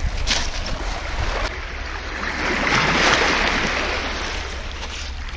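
Small waves of Lake Superior washing in over a cobble and pebble beach, the wash swelling to its loudest about three seconds in and then easing off, over a steady low rumble of wind on the microphone.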